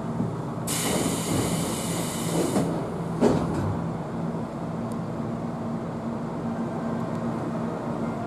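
Inside a Tobu 20000 series commuter train car: a steady low hum with two held tones runs throughout. A hiss comes in about a second in and lasts about two seconds, and a single sharp knock follows a little after three seconds.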